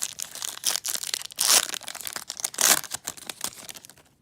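Foil trading-card pack wrapper being torn open and crinkled by hand, a dense crackling rustle with two louder crinkles partway through, stopping just before the end.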